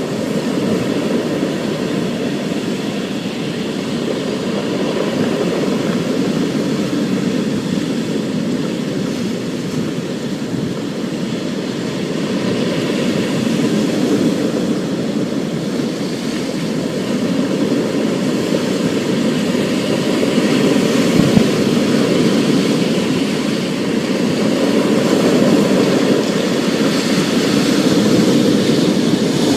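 Thunderstorm ambience: a steady rush of storm noise with a low rumble that swells and eases slowly.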